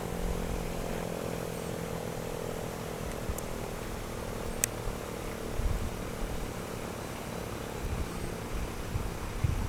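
1942 Federal Electric Model 5 siren winding down, a steady tone drifting slowly lower in pitch as the rotor coasts. Wind buffets the microphone with low gusts.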